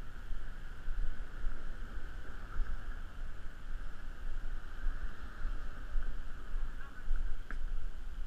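Uneven low rumble of wind and handling on a walking GoPro's microphone over a steady hiss, with one sharp click near the end.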